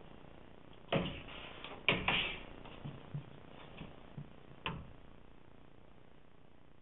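Sharp knocks and softer taps from a cat playing with a feather wand toy on carpet: two loud knocks about a second apart, a few lighter taps, then one more knock just past the middle.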